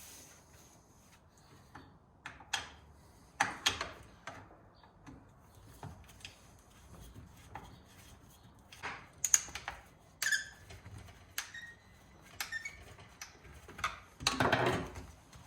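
Scattered clicks and knocks of a wrench and plastic housing being handled as a bolt is undone and a string-trimmer power head is worked loose from its shaft, with a longer scraping noise near the end as the housing slides.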